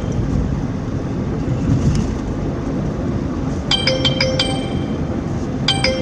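Car driving, a steady low rumble of road and engine noise inside the cabin. Short groups of bright, ringing metallic clinks come about four seconds in and again near the end.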